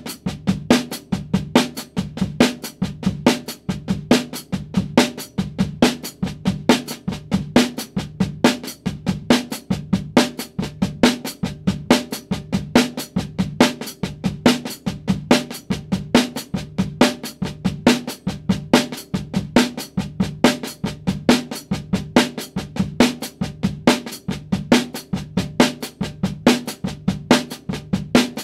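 Snare drum played with wooden sticks in a continuous run of accented paradiddles: quick, even strokes with a louder accent recurring regularly in each group, and the head ringing under them.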